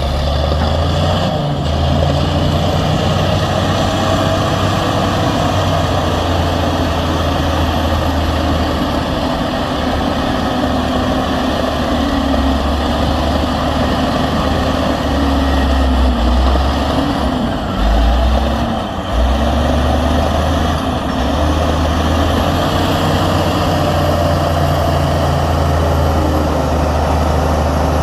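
Diesel engines of heavy earthmoving machinery running steadily, their low rumble wavering a little in pitch, briefly dropping away and coming back a little past halfway.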